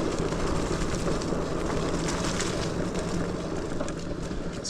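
Ride noise of a Lectric XPeak 2.0 electric bike on a bumpy dirt trail: a steady rumble of tyres and wind on the microphone, broken by many small knocks and rattles from the bumps.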